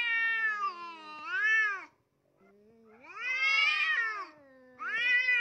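A cat yowling at another cat in a face-off, the drawn-out warning cry of a cat squaring up to fight. Three long, wavering wails rise and fall in pitch, with short breaks between them.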